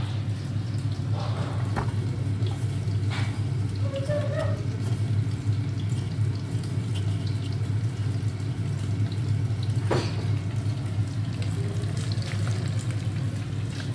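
Oil sizzling in a pot as breaded chicken strips deep-fry, over a steady low hum, with a few clicks of tongs against the plates.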